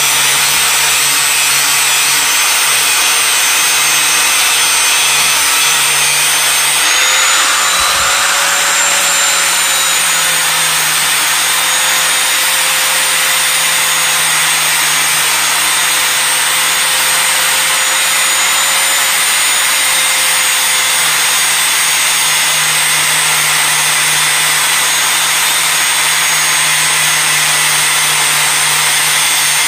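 Electric angle grinder running steadily under load, its abrasive disc grinding rust and pitting off the steel blade of an antique hatchet head.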